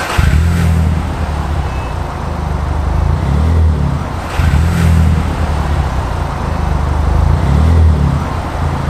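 Seat Ibiza FR 1.2 running through a non-resonated Cobra Sport stainless steel cat-back exhaust. The engine note is loud and deep and fairly steady, swelling and easing a little a few times.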